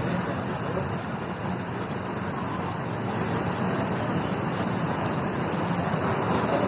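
Steady road traffic noise: a continuous wash of passing vehicles with no distinct single event.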